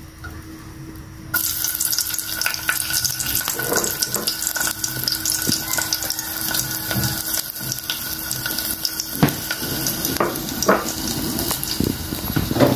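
Garlic cloves sizzling in hot cooking oil: the sizzle starts suddenly about a second in as they drop into the pot, then goes on steadily with many small crackles and pops.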